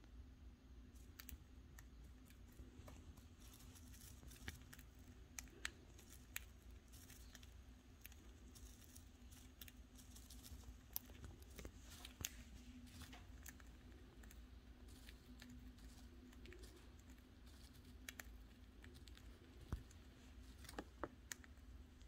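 Budgie cracking and husking spray millet seeds with its beak: faint, irregular small clicks and crackles, over a low steady hum.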